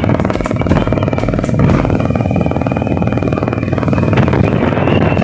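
Motor scooter running steadily at cruising speed, engine and road noise heard from the scooter itself.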